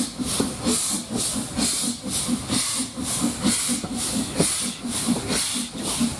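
The exhaust of an S&DJR 7F 2-8-0 steam locomotive beating steadily at about two to three chuffs a second under a steady hiss of steam, heard from a carriage along the train.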